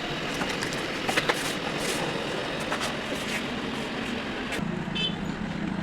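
Steady road-vehicle noise with a few clicks, and a brief high beeping near the end.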